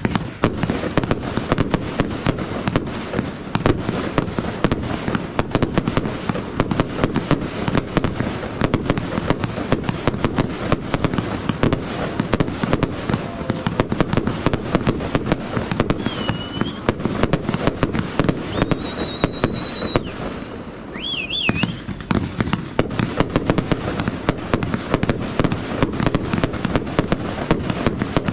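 Fireworks display: a dense, continuous barrage of crackling and bangs from rising comets and bursting shells, easing briefly about two-thirds of the way through. A few short high whistles sound in the middle.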